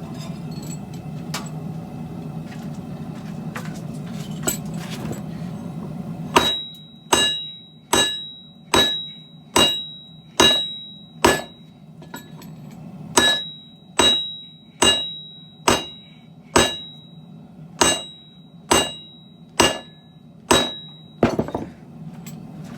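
A steady low hum, then a run of about eighteen hammer blows on hot steel on an anvil, a little under one a second with a short pause midway. Each blow leaves a high metallic ring from the anvil. This is the hammering of a Damascus billet at forging heat.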